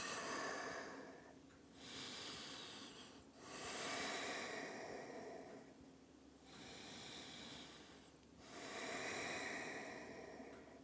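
A man's slow, deep breathing held in a yoga stretch, about five long in-and-out breaths, each one and a half to two and a half seconds long with short pauses between them.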